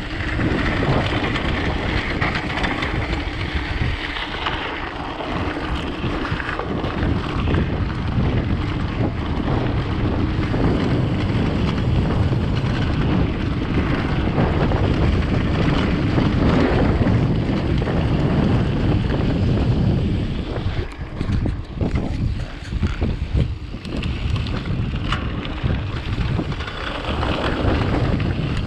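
Wind buffeting the microphone of a mountain bike riding a rough dirt trail, with constant rattles and knocks from the bike over the bumps. The noise eases for a few seconds about three-quarters of the way through.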